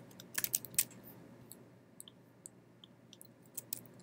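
Faint typing on a computer keyboard: a quick run of key clicks in the first second, then a few scattered single clicks over the next three seconds.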